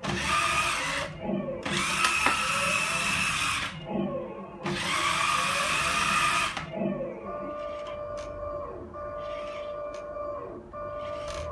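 Full-metal radio-controlled Leopard 2A6 model tank working its electric motors and onboard sound effects: three long hissing stretches over a whine, then a steady two-note hum in three stretches with a few light clicks.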